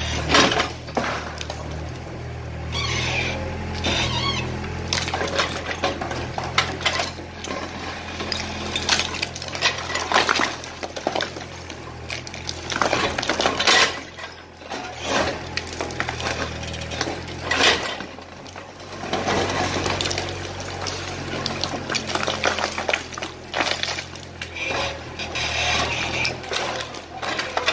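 Excavator demolishing a flat-roofed house: brick and concrete rubble crashing and clattering down in repeated irregular bursts over the steady hum of the excavator's engine.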